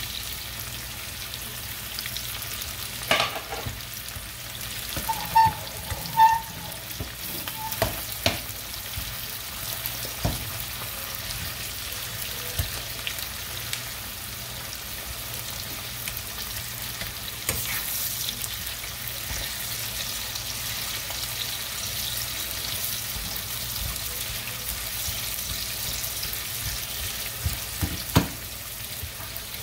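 Salt fish, onions and sweet peppers frying in a frying pan with a steady sizzle, while a spoon stirs them and knocks against the pan now and then, most sharply about five to six seconds in.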